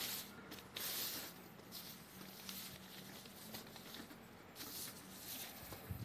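Sheet of calligraphy paper rustling and sliding as it is shifted and smoothed flat by hand, in a few short swishes, the longest in the first second, over a faint steady hum.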